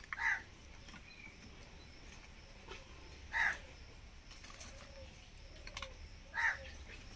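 A crow cawing three times, about three seconds apart, each caw falling in pitch. Faint clicks of dry twigs being handled come in between.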